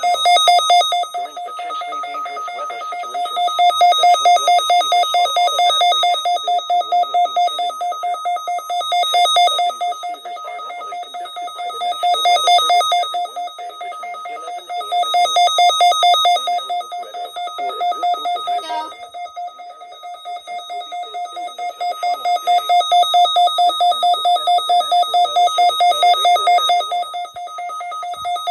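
Electronic alert tone of an Emergency Alert System weekly test: a continuous, rapidly pulsing alarm tone with a rough, noisy edge, swelling and fading in loudness every few seconds.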